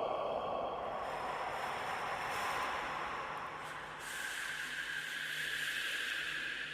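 Scary whispering: a breathy, hissing whisper with no voiced tone, shifting slowly, growing brighter about four seconds in.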